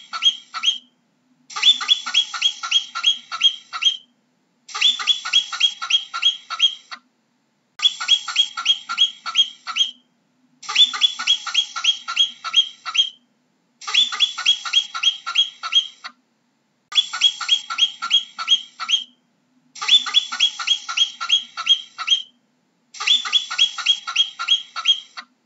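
Marmot alarm whistles: sharp, high calls given in quick bouts of eight to ten, each call dropping slightly in pitch, the bouts repeating about every three seconds with short silences between.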